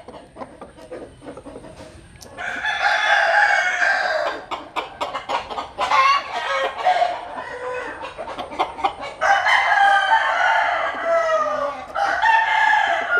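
Roosters crowing, about four crows in a row, some overlapping, their pitch falling toward the end of each.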